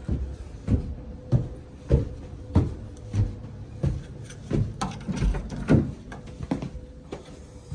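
Footsteps at a steady walking pace, about three steps every two seconds, over a faint steady hum.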